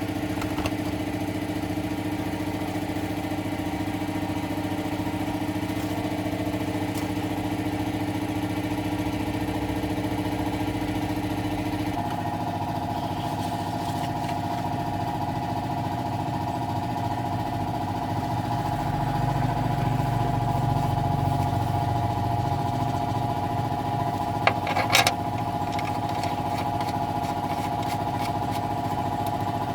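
An engine running steadily, a hum that shifts suddenly to a different pitch about twelve seconds in. A heavier low rumble follows for a few seconds, and a few sharp clicks come later.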